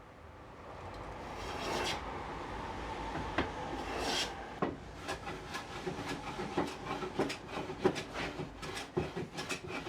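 Hand plane shaving rough cherry: two long drawn strokes, then a run of short, quick strokes with small knocks of the plane on the wood.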